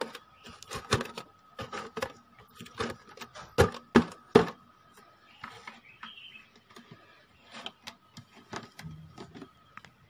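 Irregular clicks and knocks of a thin hand tool and hands working on a plastic amplifier-speaker cabinet, with three sharp knocks about halfway through, over a faint steady high tone.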